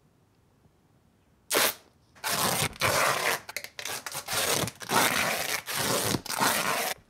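Duct tape being pulled off the roll in loud rips as it is wound around a person's body to bind him. One short rip comes about a second and a half in, then a run of about six longer rips with brief pauses between them.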